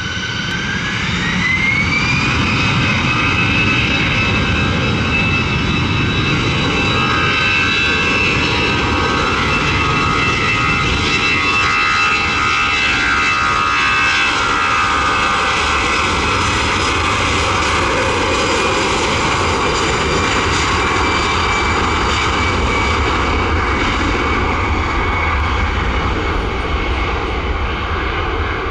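Airbus A320's CFM56-5B turbofan engines spooling up for takeoff: a whine that rises in pitch over the first two seconds or so, then holds as a steady high whine over a loud rushing jet noise while the aircraft rolls down the runway.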